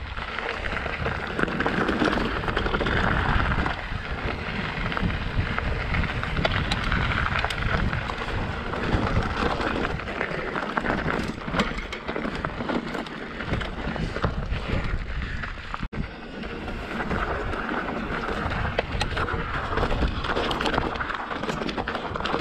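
Mountain bike riding over rocky dirt singletrack: knobby tyres crunching over gravel and rocks, with rattles and clatter from the bike, under wind rushing on the microphone. The sound briefly drops out about two-thirds of the way through.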